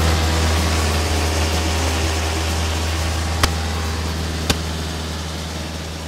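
Cessna 152's four-cylinder Lycoming engine and propeller droning steadily in cruise, heard inside the cabin with wind rush over the airframe. Two sharp clicks about a second apart, and the drone gets gradually quieter near the end.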